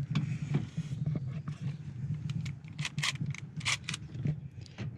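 Scattered light metallic clicks and taps as window-regulator bolts are placed and started by hand in a car door, over a steady low hum.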